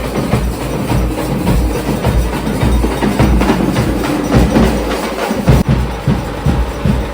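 Loud music driven by dense, rapid drumming, with heavy low thumps and sharp clacking strikes.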